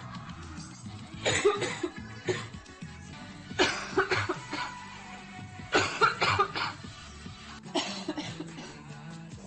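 A girl coughing nearly uncontrollably from a severe chest cold: about five coughing bouts a second or two apart, some of them several coughs in a row.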